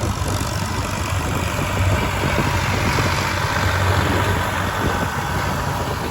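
Ford tractor's diesel engine running steadily with a low hum.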